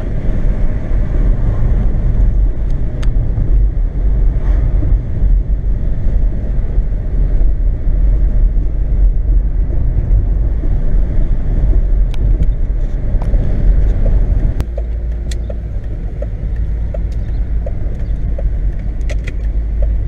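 Car cabin noise while driving: a steady low rumble of road and engine noise heard from inside the car. It eases somewhat about three quarters of the way through, leaving a faint steady engine hum.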